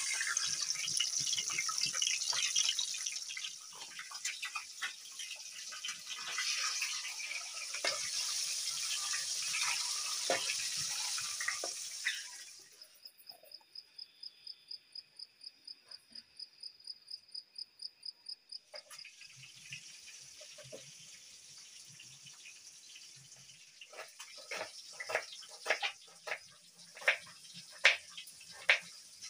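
Peeled boiled eggs frying in hot oil in a wok, a steady crackling sizzle. This gives way to an insect chirping in an even rhythm, about four pulses a second. Near the end comes a kitchen knife chopping shallots on a wooden board, a quick run of sharp knocks.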